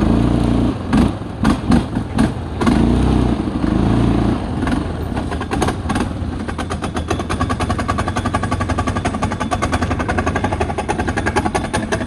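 Feishen FA-D300 ATV engine revving under throttle with a few short blips, then dropping about five seconds in to a rough idle with a rapid, regular pinging tick. It is the pinging the owner hears at idle, where the engine won't hold idle without dying; he suspects a crank bearing or the piston rings.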